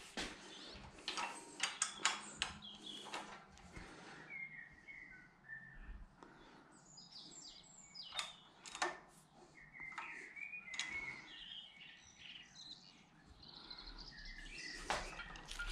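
Birds chirping in short scattered notes, with sharp metallic clicks and clinks of hand tools, a wrench and breaker bar, being handled on an engine block, and a low rumble near the end.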